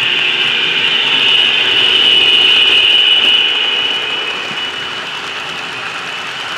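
HO scale model freight train passing close by: the CSX diesel locomotive's motor gives a high whine that grows loudest as it goes past, then fades into the lighter rolling rattle of the freight cars on the track.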